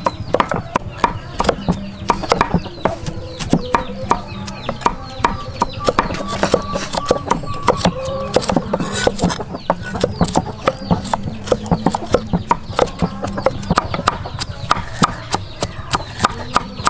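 Cleavers chopping carrots and then garlic on wooden chopping blocks: rapid, uneven knocks, several blades at once. Chickens cluck in the background.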